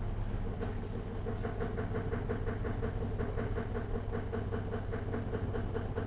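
Miyako MAW-12QS 12 kg washing machine on its spin cycle with a load of clothes: a steady motor hum under an even whooshing pulse about five times a second as the drum turns.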